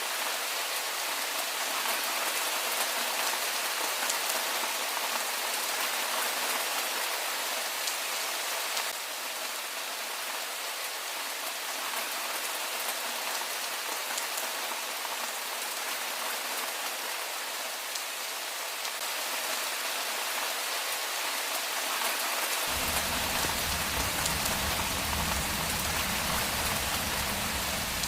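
Steady rain falling on a street. Near the end a low rumble comes in suddenly and holds under the rain.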